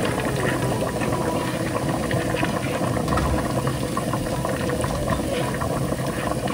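Chickpeas bubbling at a steady boil in an open pressure-cooker pot, together with a tadka of garlic-ginger paste and spices sizzling in oil in a small pan.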